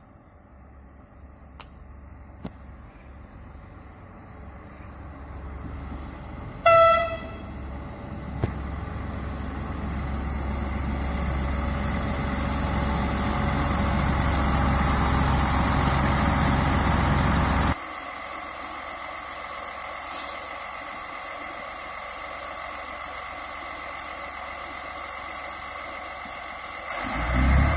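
Alstom Coradia A TER diesel railcar arriving: one short horn blast about seven seconds in, then its engine and wheels grow steadily louder as it runs in. From about eighteen seconds it runs quietly with a steady hum, and the engine noise swells again near the end.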